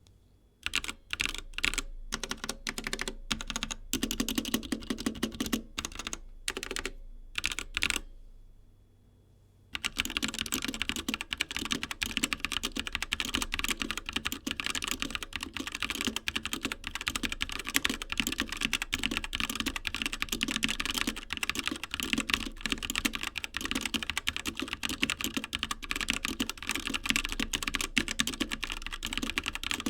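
Typing on the Duklock ALE ČAU mechanical keyboard with Drinkey Red switches. Separate keystrokes and short runs come first, then a pause of about two seconds, then steady fast typing.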